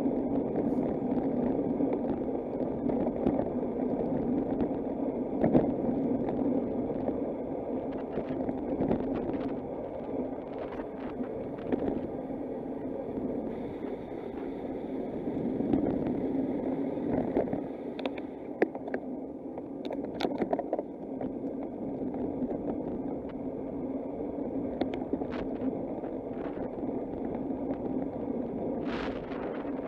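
Steady rumble of a bicycle in motion, tyres on the road and air rushing past, with scattered sharp clicks and rattles.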